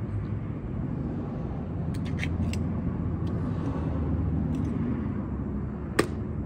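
Steady low rumble of traffic that swells around the middle, with a few light clicks and one sharp click about six seconds in.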